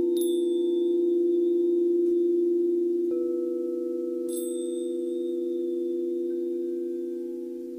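Singing bowls ringing together in a steady, layered hum, with another bowl struck softly about three seconds in. A high chime is struck twice, near the start and about four seconds later, each strike ringing on and slowly dying away.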